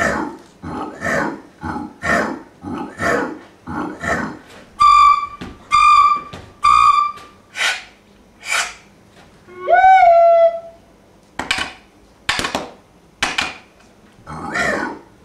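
Recorder played with extended techniques: short noisy blasts about twice a second, then three short clear notes, more noisy air bursts, and one note that slides sharply upward about ten seconds in.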